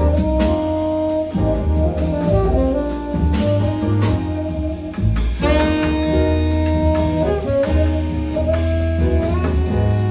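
Small jazz band playing live: a tenor saxophone holds a melody line of long notes over piano, upright bass and drums with cymbals.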